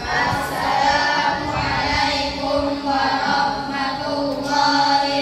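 A group of children singing together in unison, with sustained, held notes.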